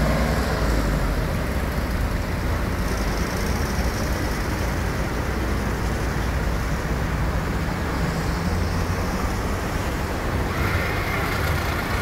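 Steady road traffic, with cars and a bus driving past.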